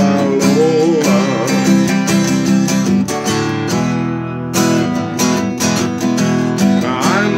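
Steel-string acoustic guitar strummed in a steady chord rhythm, played as an instrumental passage between sung lines.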